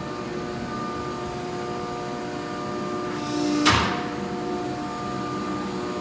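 Hydraulic power unit of a C&M single-ram horizontal paper baler, driven by a 20 HP electric motor, running with a steady hum. About three and a half seconds in, a single sharp clunk with a short hiss as the hand-lever hydraulic valve for the door-latch cylinder is worked.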